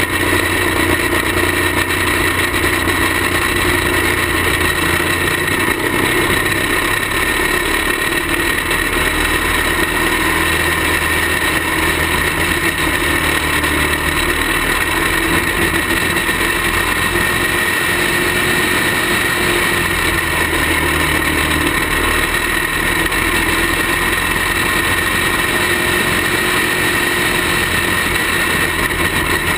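A caged racing kart's engine running hard and steady through the race, heard on board the kart, its pitch staying nearly even.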